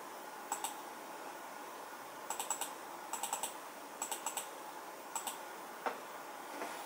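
Quick runs of small, sharp clicks, two to four at a time, with a single duller knock near the end, over a steady hiss.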